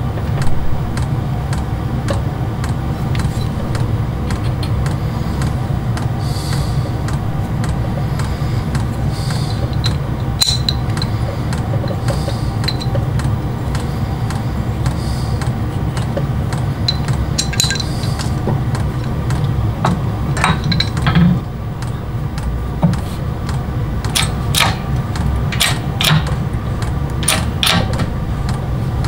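Small steel chainsaw crankshaft parts and press tooling clicking and tapping against each other and the steel press bed as they are handled and set up, with the taps coming thickest near the end. A steady low hum runs underneath.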